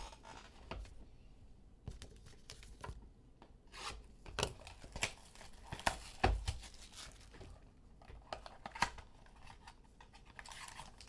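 Hands tearing the wrapper off a sealed football trading card box and prying its cardboard flaps open: irregular crinkling, tearing and small clicks of packaging, with one dull knock about six seconds in.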